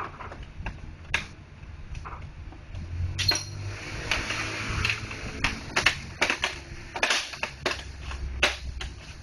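Irregular clicks and taps of small plastic printer parts being handled and snapped together, coming faster in the second half, with a short rustle partway through.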